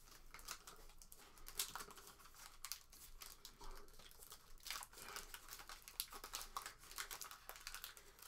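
Foil trading-card packs crinkling and tearing as they are peeled open by hand: a faint, irregular crackle throughout.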